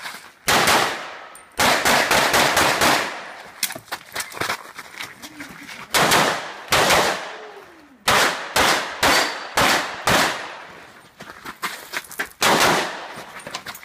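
Pistol shots fired in fast strings of two to several shots, with pauses of a second or more between strings as the shooter moves to new positions; each shot rings off briefly.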